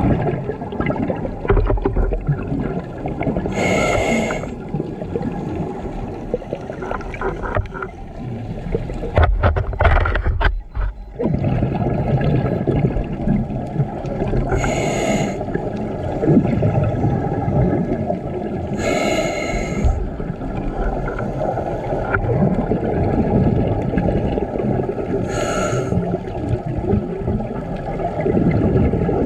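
Scuba diver breathing through a regulator underwater: a continuous low bubbling rumble, broken about four times, several seconds apart, by a short hissing inhalation with a whistling tone.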